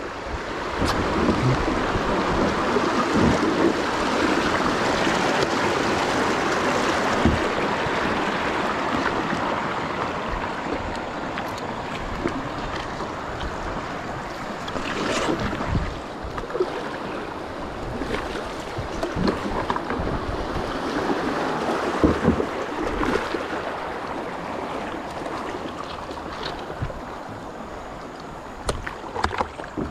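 Rushing water of river rapids around a paddle board: loud at first, easing off over the second half as the water calms, with occasional knocks and splashes.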